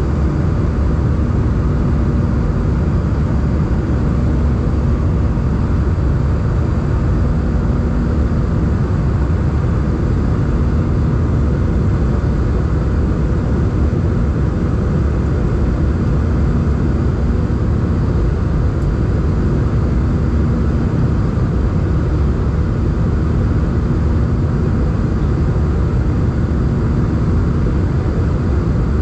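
Steady cabin noise inside an Airbus A320 in flight: the deep, even roar of the jet engines and air rushing past the fuselage, with a faint hum that swells and fades every few seconds.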